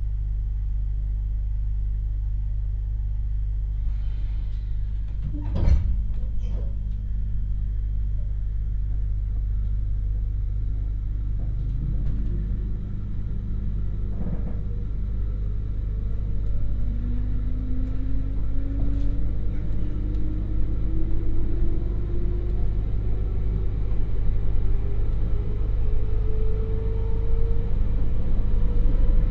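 Inside a JR Hokkaido 721 series electric train car pulling away: a steady low 50 Hz AC hum, with a sharp clunk about six seconds in. From about ten seconds in comes the whine of its MT61 DC traction motors and gearing under thyristor phase control, rising steadily in pitch as the train accelerates.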